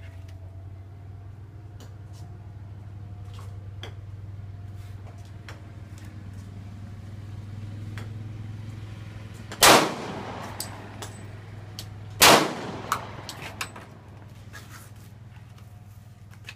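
Two loud pistol shots about two and a half seconds apart, each a sharp crack with a short echoing tail, with a few much fainter cracks around them.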